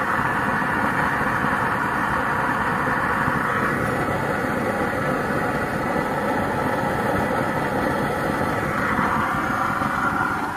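Homemade waste-oil drip burner stove (kalan de mantika) fuelled with used engine oil, burning steadily with a continuous rushing noise.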